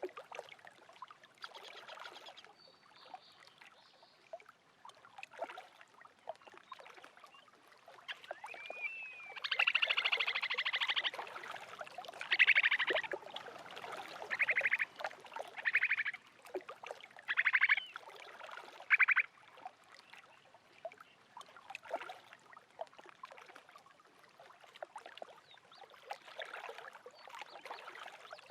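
Small lake waves lapping and splashing at the water's edge, with many small irregular splashes and clicks. About ten seconds in, an animal gives a run of about six short, rapid trilled calls over roughly ten seconds; these are the loudest sounds.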